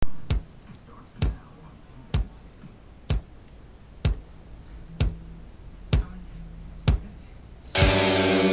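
Heavy footsteps of someone walking in an Iron Man armour costume: nine evenly spaced thuds, about one a second. Near the end, music with held notes cuts in suddenly.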